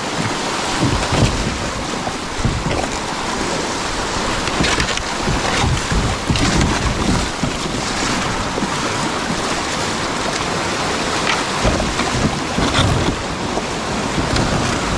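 Rushing whitewater of a shallow river rapid around the kayak, with frequent short splashes of water against the hull and paddle, and wind buffeting the microphone.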